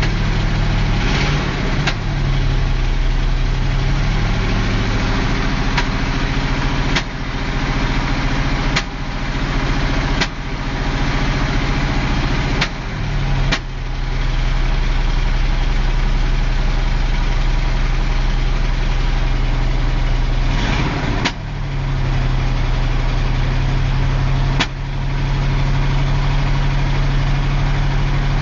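A 1974 Camaro's 650 cubic-inch V8 idling, its idle speed wandering a little, with sharp clicks or knocks at irregular intervals, about eight in all. This is the suspect noise that bothers the owner, its cause unknown.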